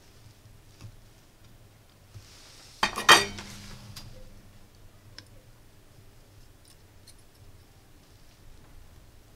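A brief burst of sharp metallic clicks and clatter about three seconds in, followed by a short low ring, from metal tools being handled on a workbench. Otherwise only a few faint clicks of quiet handling.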